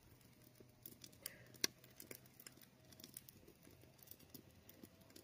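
Near silence with faint, scattered small clicks and taps, the sharpest about a second and a half in.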